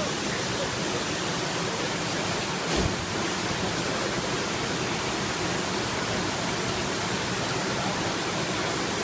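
Suadag waterfall: a steady, even rush of falling water, with one brief bump about three seconds in.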